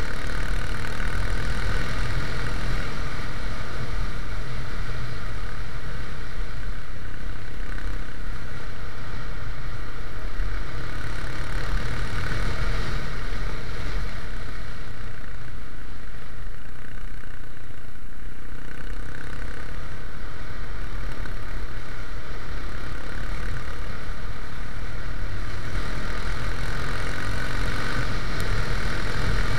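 Yamaha XT350's single-cylinder four-stroke engine running steadily at cruising speed, with wind noise on the microphone. The owner calls the bike slightly misfiring.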